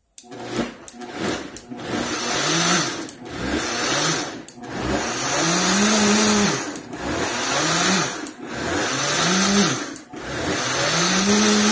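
Vitamix blender blending a thick green smoothie, its motor surging over and over, the hum rising, holding and falling with each surge.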